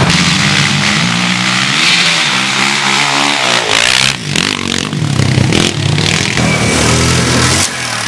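Quad bike (ATV) engine revving loudly. Its pitch sweeps down about three seconds in, dips briefly, then holds steadier.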